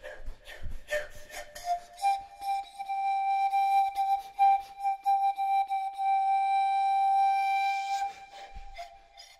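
A flute plays a few short clipped notes with light clicks. About two seconds in it holds one long steady high note for about six seconds, then ends on a brief lower note.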